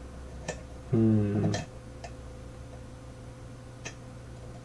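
A few light, separate ticks of a lock pick working the pins inside a pin tumbler challenge lock, with a short hummed "hmm" from the picker about a second in.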